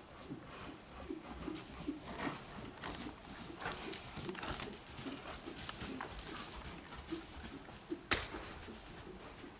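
A horse's hooves falling irregularly on a soft arena surface, with one sharp knock about eight seconds in.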